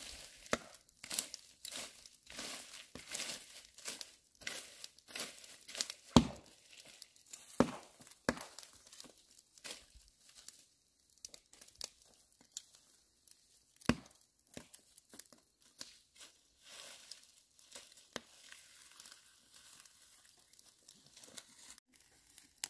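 Dry grass and cane stalks rustling and crackling as they are gathered up by hand, an irregular run of dry crackles with a few louder sharp cracks.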